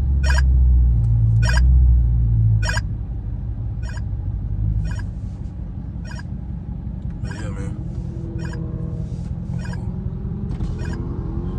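Dodge Charger Scat Pack's catless 392 HEMI V8 rumbling inside the closed cabin. It is loudest for the first few seconds, then settles to a lower drone as the car slows into stopped traffic. A dash-mounted radar detector chirps about once a second.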